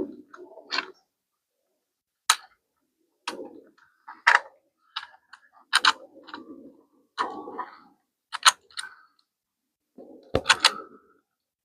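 Sharp metallic clicks and clinks of hand tools and hardware as a washer and nut are fitted and tightened on a motorcycle, with short handling rustles between them. The clicks come irregularly, a few of them in quick doubles or triples.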